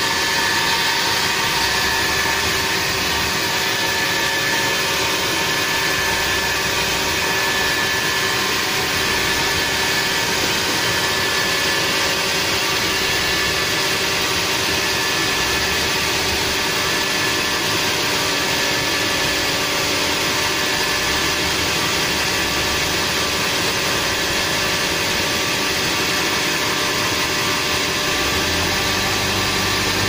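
Band sawmill running steadily, a continuous machine sound that holds an even level with no cut-in or change.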